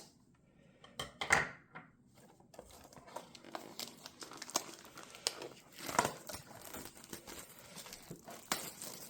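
Plastic shrink-wrap on a trading-card blaster box being torn open and crinkled, with scattered crackles and a few sharp snaps starting about a second in.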